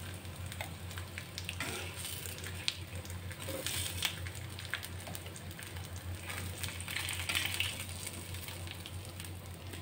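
Oil sizzling on an iron tawa around frying rohu fish steaks, with scattered crackles and pops, as a steel slotted spoon lifts the pieces off the pan. A steady low hum runs underneath.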